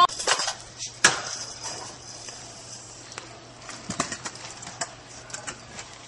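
Stunt scooter rolling on a concrete walkway, its wheels going with a steady rumble. There is a sharp click about a second in and a few lighter clicks later on.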